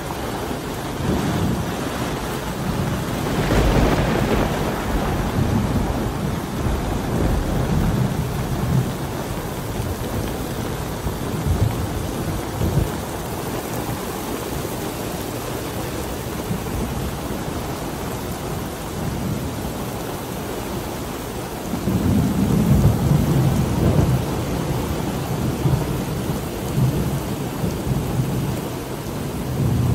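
Thunderstorm: rain falling steadily, with thunder rolling twice, a few seconds in and again, louder, about two-thirds of the way through.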